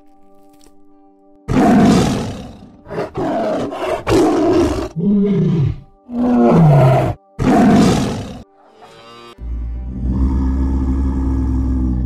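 Tiger roaring and growling: about six loud calls in quick succession, some sliding down in pitch. It is followed, about nine and a half seconds in, by a steady low drone.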